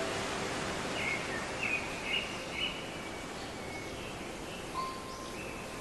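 Wild birds chirping: a run of short high chirps about a second in, then a held whistled note near the end, over a steady outdoor hiss.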